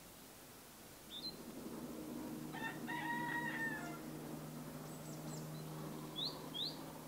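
A rooster crows once, about three seconds in, over a low steady hum. Short rising bird chirps follow twice near the end.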